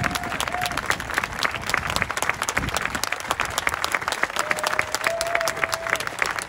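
Audience applauding, a steady patter of many hands clapping. A single long steady note is held over the clapping in the second half.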